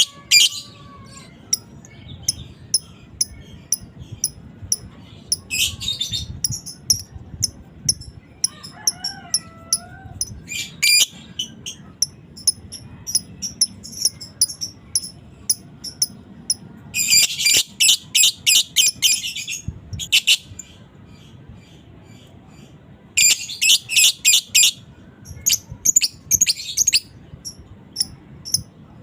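Lovebird calling in sharp, high, clipped chirps, broken by long rapid chattering runs (the 'ngekek' of a lovebird in full song) about 17 and 23 seconds in.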